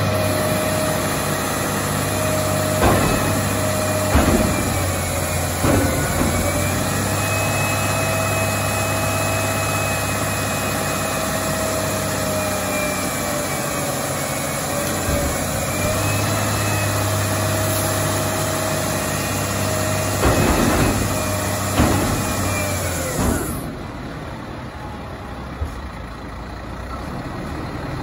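White GMC WX64 garbage truck's diesel engine running at raised revs with a steady whine. The pitch dips briefly a few times, and there are several short sharp noises. The revs fall away near the end.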